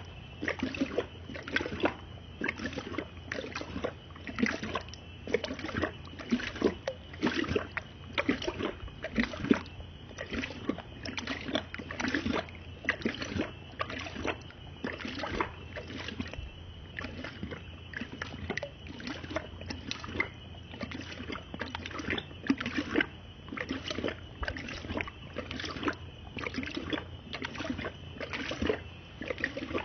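Dog lapping water from a plastic bucket: repeated wet splashing laps of the tongue, about one or two a second.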